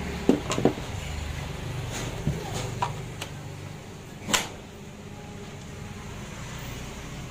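Hard plastic clicks and knocks from handling a cordless impact driver and its battery packs, with no motor running: a close pair of sharp clicks about half a second in, a few lighter ones after, and one more sharp click a little past the middle.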